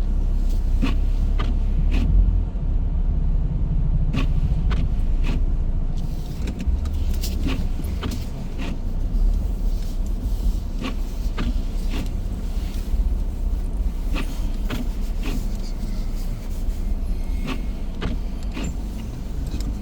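A car in motion: steady low road and engine rumble, with scattered sharp clicks and knocks throughout.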